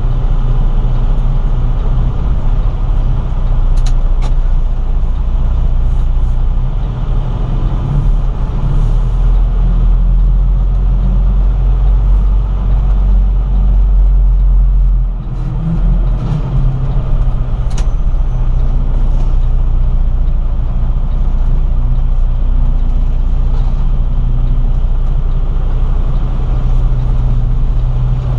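Semi truck's diesel engine running with a steady low rumble as the truck drives slowly, heard from the cab. The deepest part of the rumble shifts about halfway through.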